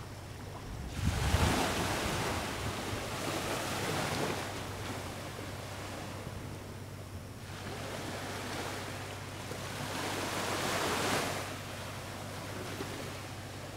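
Gentle sea waves washing, swelling up and easing off twice in slow surges, with some wind on the microphone.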